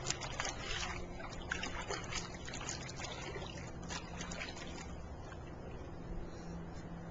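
Shallow water in a small inflatable paddling pool splashing, sloshing and trickling as a toddler moves in it, with small splashes scattered through, busiest in the first few seconds.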